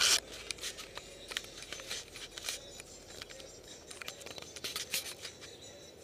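Irregular rustling, scraping and clicking from a handheld camera being moved about, with the loudest scrape right at the start.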